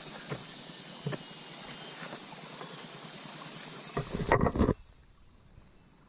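Insects chirring steadily in a high, even drone. A short burst of voice comes about four and a half seconds in, and right after it the sound drops away abruptly to a much quieter hush.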